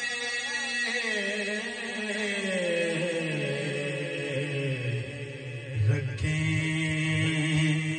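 A man singing a naat into a microphone: one long drawn-out line that slides slowly down in pitch, then settles on a held low note about six seconds in.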